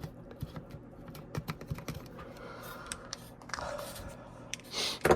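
Light, irregular clicks and taps of hard plastic parts of a car heater control unit being handled and worked by hand, with a brief hiss of breath or rubbing near the end.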